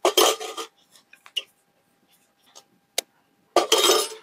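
Shell of a hard-boiled egg being cracked and peeled over a steel plate: a short crackling crunch at the start and another near the end, with a few light clicks between.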